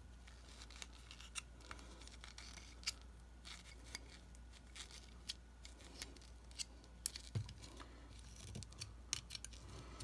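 Faint, irregular clicks and light scrapes of a steel knife blade and fingers working cotton packing into a Zippo lighter's metal insert.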